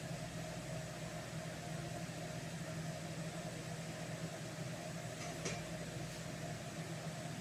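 Steady low machine hum, with a faint click about five and a half seconds in.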